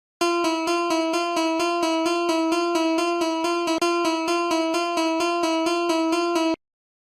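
Japanese railroad crossing alarm ringing: one fixed tone repeated rapidly and evenly, about four to five strikes a second for some six seconds, then cutting off suddenly.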